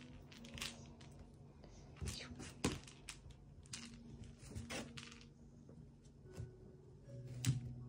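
Scattered light taps and knocks, a few per few seconds, from a small pet's paws and claws on a hard floor as it scampers and pounces around a paper shopping bag, over a faint steady hum.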